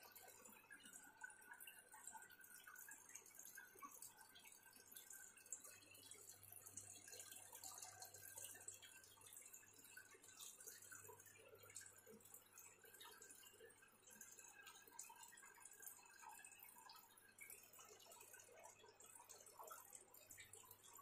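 Aquarium water faintly trickling and dripping over a low steady hum.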